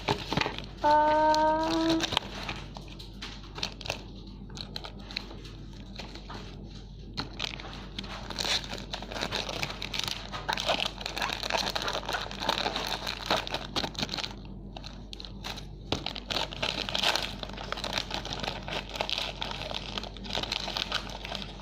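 Plastic snack packaging crinkling and tearing as packets are handled and opened, busier in the second half. About a second in there is a short steady hummed note from a voice.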